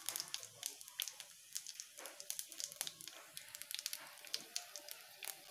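Bay leaves and whole spices frying in hot oil in a kadai for a tadka: a faint sizzle with irregular small crackling pops.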